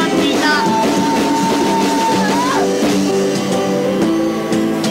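Rock band song playing, with vocals, piano, bass and drums. A long held high note runs through the first half, ending in a short upward slide about two and a half seconds in.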